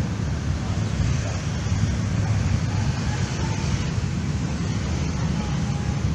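Steady low rumble of wind buffeting the microphone outdoors, with no distinct events standing out.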